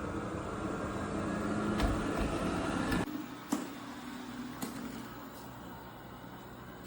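eufy RoboVac 11S Max robot vacuum running, a steady whirring of its suction motor and brushes with a few light clicks and knocks. About three seconds in the sound drops suddenly to a quieter steady hum.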